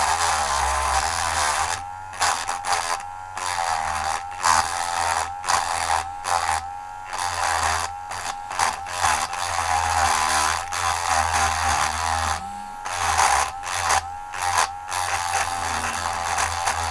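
Dremel rotary tool grinding into a die-cast metal toy car: a high motor whine whose pitch sags and recovers as the bit bites, broken by a few short pauses.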